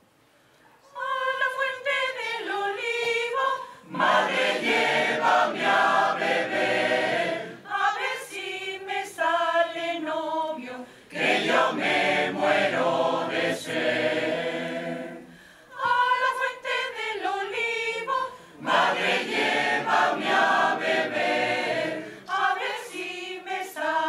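Mixed choir singing a cappella, coming in about a second in and going on in phrases broken by short pauses.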